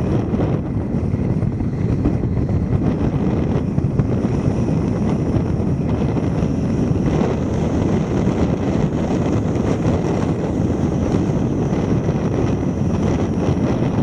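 Steady low rumble of a car driving along a paved road, tyre and road noise mixed with wind buffeting a microphone mounted on the outside of the car.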